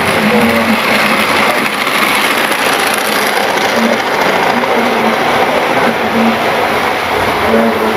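Model railway diesel locomotive running along the track: a steady mechanical running noise from its motor and wheels on the rails.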